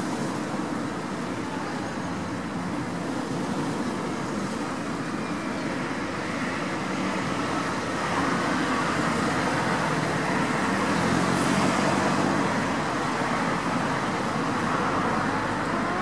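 Steady outdoor traffic noise, getting somewhat louder for a few seconds about halfway through as an engine hum passes.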